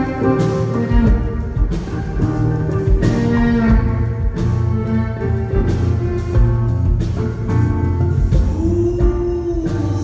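Live amplified band music: a bowed violin playing the melody over electric guitar accompaniment.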